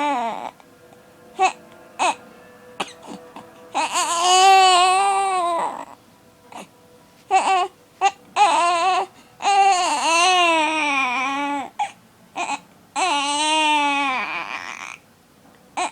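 Six-week-old baby crying in three long, wavering wails, with short sharp hiccups in the gaps between them.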